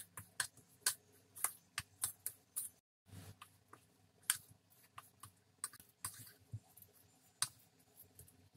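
Steel spoon stirring a thick mix of semolina and curd in a plastic bowl: faint, irregular clicks and scrapes of the spoon against the bowl, several a second.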